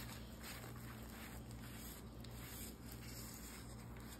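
Faint soft rubbing and squishing of a rubber-gloved hand working a thick, putty-like baking-soda cleaning paste over a metal sheet pan, in several strokes, over a low steady hum.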